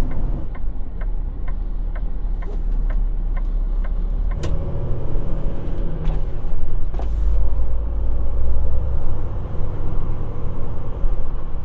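Inside the cab of a Peterbilt semi truck on the highway: a steady low engine and road rumble. A regular ticking about twice a second runs for the first few seconds, and a single sharp click comes about four and a half seconds in.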